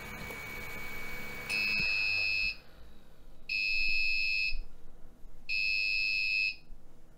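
5 V Arduino piezo buzzer alarm sounding three even, high-pitched beeps of about a second each, two seconds apart. The smoke-detecting safety gadget has tripped on smoke. Just as the first beep starts, the steady hum of the running 3D printer cuts off as its relay shuts off the printer's power.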